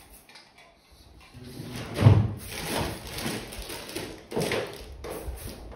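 Handling noises: a thump about two seconds in, then rustling and clatter as things are moved about.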